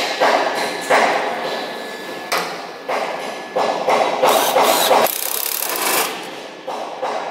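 Mechanical assembly noise from fitting a radiator to a diesel generator set: irregular bursts of metal clattering and knocking, each starting sharply and lasting under a second.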